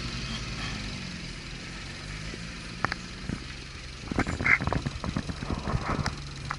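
Off-road vehicle engine idling steadily, with a run of sharp clicks and knocks starting about four seconds in.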